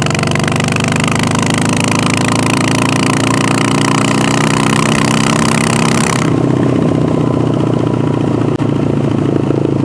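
Harley-Davidson Sportster V-twin with a Vance & Hines VO2 air intake accelerating hard, its pitch rising steadily under heavy throttle for about six seconds. The throttle is then eased off abruptly, leaving the engine running at a steadier pitch. The exhaust is extra loud because the front exhaust flange nuts had fallen off.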